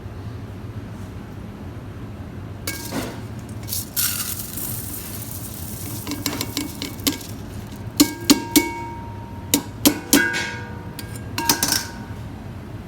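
Kitchenware being handled: a string of sharp clinks and knocks of pots, bowls or utensils, some leaving a short ringing tone, coming in small clusters.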